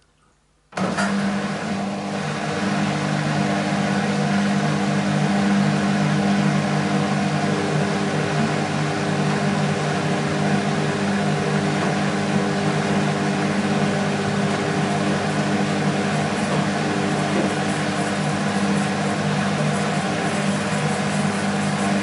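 BEKO WMB 51441 front-loading washing machine running mid-cycle with water in the drum: a steady machine hum with rushing water noise that starts suddenly about a second in and holds steady.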